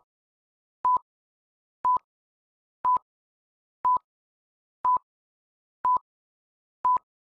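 Film-leader countdown beeps: a short, pure electronic test-tone beep about once a second, each at the same pitch and starting and ending with a slight click, with silence between beeps.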